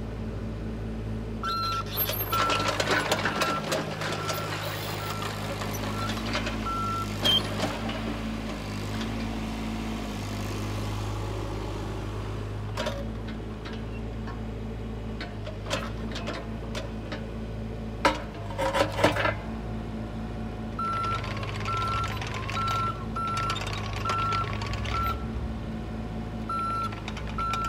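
Volvo EC35C mini excavator's diesel engine running steadily as the machine swings and tracks, with its travel alarm beeping about twice a second in two spells. A few sharp clanks from the machine come near the two-thirds mark.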